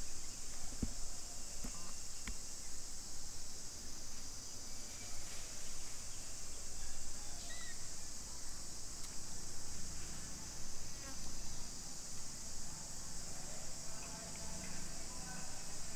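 Steady, high-pitched drone of an insect chorus, unbroken throughout, over a faint low rumble of ambient noise.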